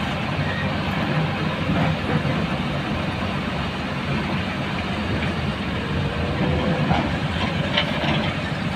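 Heavy diesel engines of tipper trucks and excavators running steadily, with a few faint knocks near the end.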